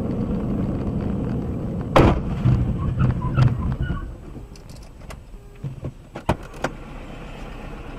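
Road and engine noise of a car in city traffic, heard from inside the car. It is loud for the first few seconds, with one sharp bang about two seconds in. After that it is quieter, with a few sharp clicks.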